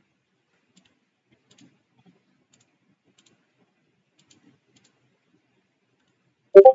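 Faint, scattered computer mouse clicks a few seconds apart, with one short, loud knock near the end.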